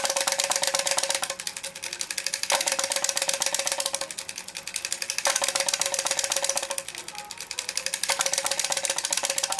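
Clockwork tin toy drummer running: its drumsticks tap rapidly on a small tin toy drum over the whir and rattle of the wind-up mechanism. The tapping gets louder and quieter in turns, about every second and a half.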